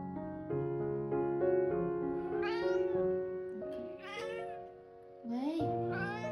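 A cat meowing three times, each call rising then falling in pitch, about half a second long, over steady background music.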